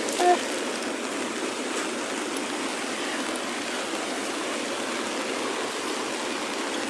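Steady rushing of a swollen, flooded river, mixed with falling rain.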